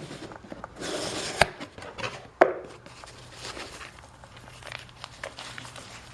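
Cardboard box being opened by hand, its flaps and packing rustling and crinkling, with two sharp snaps about a second apart, the first about one and a half seconds in; fainter rustling follows.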